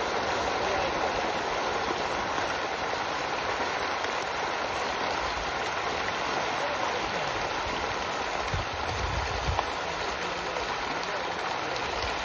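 A dense mass of farmed fish thrashing and splashing at the pond surface in a feeding frenzy: a continuous rushing splash like pouring rain. A brief low rumble comes about nine seconds in.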